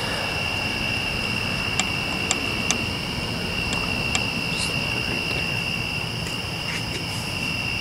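Steady high-pitched chorus of crickets trilling on a September evening, over a low, even background rumble, with a few faint clicks.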